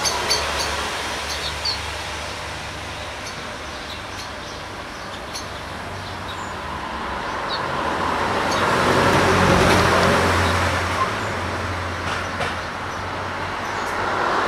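Street traffic noise with a motor vehicle passing by, its sound swelling to a peak about two-thirds of the way through and then fading.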